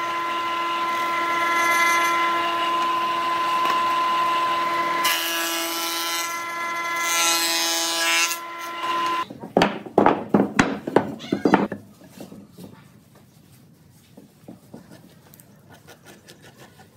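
Combination jointer-thickness planer running with a steady hum, with two stretches of louder rasping noise as a board is planed. About nine seconds in it stops suddenly, and a quick series of loud knocks follows.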